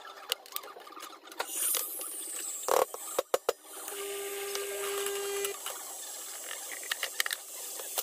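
Metal clinks and clanks of espresso-machine parts being handled at a Breville Oracle Touch, with three sharp clacks about three seconds in. The machine's motor hums steadily for about a second and a half just after the middle.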